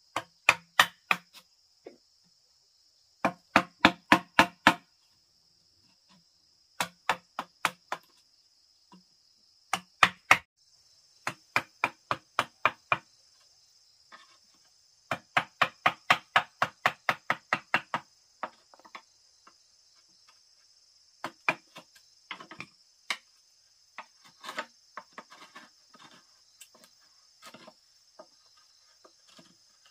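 Wooden mallet striking a chisel to cut an opening in a green bamboo tube: runs of sharp knocks at about four a second with pauses between, then softer, irregular taps in the second half. Insects trill steadily in the background.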